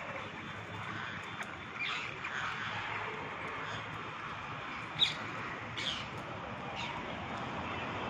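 A flock of rose-ringed parakeets screeching and chirping while feeding. Short calls overlap throughout, with one sharp, loud screech about five seconds in and another just before six seconds.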